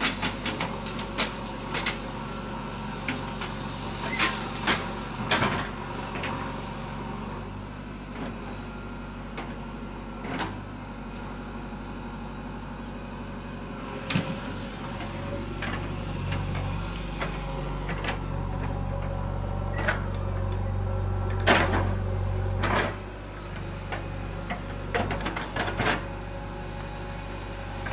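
JCB 3DX backhoe loader's diesel engine running as the backhoe digs, with scattered clanks and scrapes of the bucket in stony soil. The engine works harder and louder for several seconds past the middle, then drops back.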